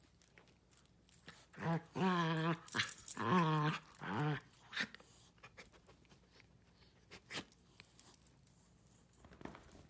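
Miniature dachshund play-growling while wrestling with another dog: three short, wavering growls a little over a second apart, followed by faint rustling and clicks.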